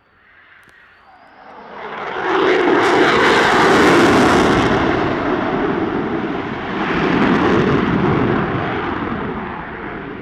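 F-22 Raptor's twin Pratt & Whitney F119 turbofan jet engines at display power: a jet roar that builds up quickly a second or two in, peaks, swells again later and fades as the fighter turns away.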